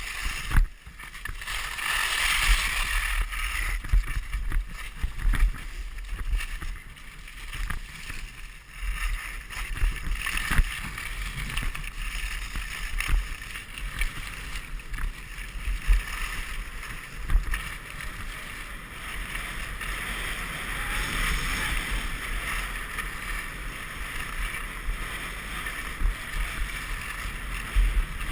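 Skis hissing and scraping over snow on a downhill run, with wind buffeting the microphone and occasional thumps over the bumps.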